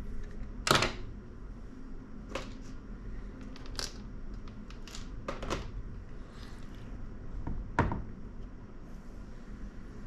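Sharp clicks and taps of small tools and parts against a MacBook Pro's metal case, about six over several seconds, the first and last loudest, over a low steady hum.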